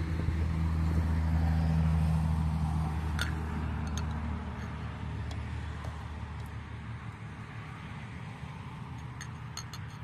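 A motor vehicle's engine hums low and steady, loudest in the first few seconds and then fading away, as if passing at a distance. A few light metal clinks, like a ladle against the pot and bowl, come about three seconds in and again near the end.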